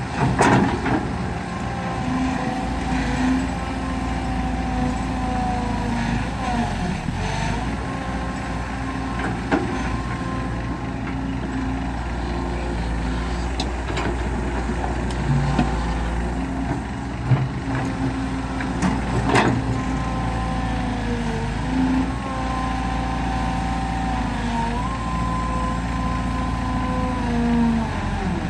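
Hydraulic excavator's diesel engine running under working load as it digs and swings. Its pitch dips and rises several times with the hydraulics. A few sharp knocks of bucket and rock come through, the loudest near the start and about two-thirds of the way through.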